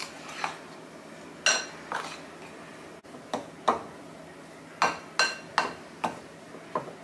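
Metal spoon clinking and scraping against a ceramic mixing bowl while stirring peanut butter into powdered sugar to make a crumble topping: about eight sharp clinks at an irregular pace.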